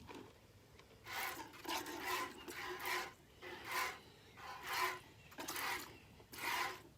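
Goat being milked by hand: about seven squirts of milk hiss into the pail, roughly one a second, starting about a second in.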